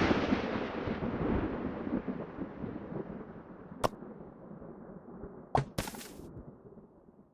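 Thunderclap: a sudden crack that rumbles and slowly fades away over several seconds, with a few sharp clicks in the second half.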